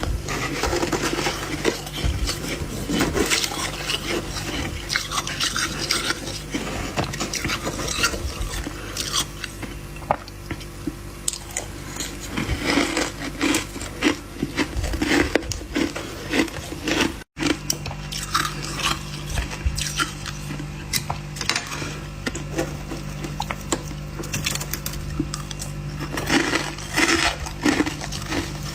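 Fluffy freezer frost being bitten and chewed, a dense run of crisp, irregular crunches and crackles, over a steady low hum. The sound cuts out for an instant about two-thirds of the way through.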